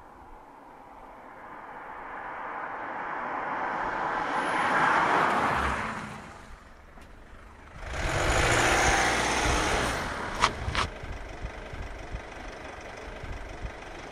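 A car approaching and driving past, its engine and tyre noise swelling to a peak about five seconds in and fading away. A second stretch of car and road noise starts suddenly near eight seconds and dies down to a low steady hum, with two short clicks a little later.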